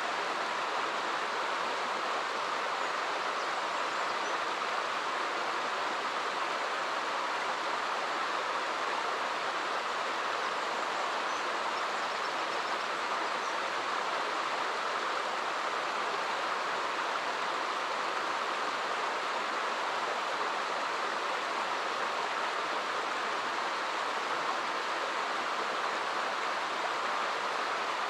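Small stream running in little cascades over rocks, a steady, even rush of water.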